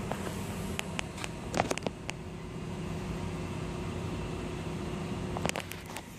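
Steady mechanical hum of equipment in a chiller plant room, with a few sharp clicks and knocks about a second in and again near the end.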